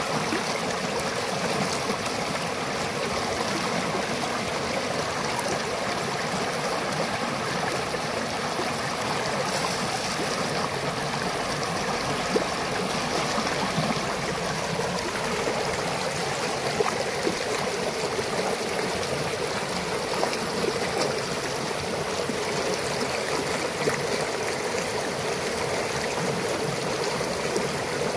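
Shallow rocky mountain stream rushing steadily over stones and a small cascade, with a few brief clicks.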